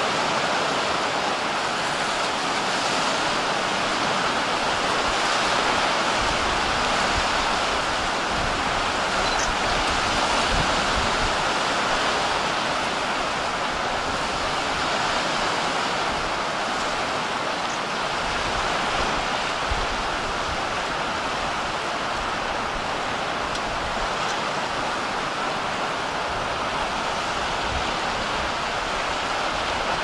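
Steady wash of sea surf, an even rushing noise without a break, with wind rumbling on the microphone now and then.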